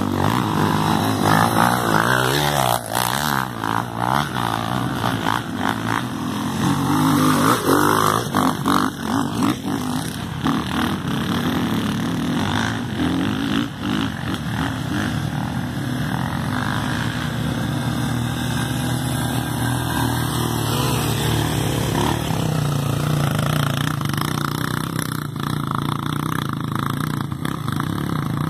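Trail motorcycle engines running, revving up and down over the first ten seconds, then settling into a steadier, lower run.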